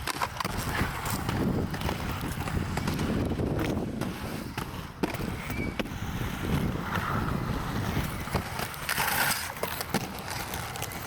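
Inline skate wheels rolling over rough street pavement, a steady rumble with scattered sharp clacks.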